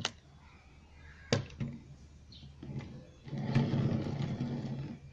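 Wooden turntable base being handled: a few sharp knocks in the first couple of seconds, then a rumbling for about two seconds from a little past halfway.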